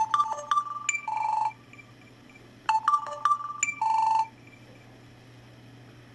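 Samsung Galaxy S phone's loudspeaker playing a short electronic test melody during the speaker test of its service test menu. The phrase plays twice, each time about a second and a half, and stops a little after four seconds in.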